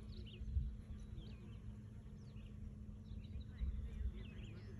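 Small birds chirping in many short quick calls over a steady low hum of bees working the lavender, with two brief low rumbles, one about half a second in and one near the end.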